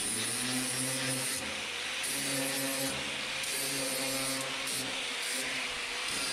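Angle grinder with a sanding disc deburring the cut steel tubing of an IBC tote cage: a steady motor hum under a gritty hiss. It starts abruptly at the very beginning.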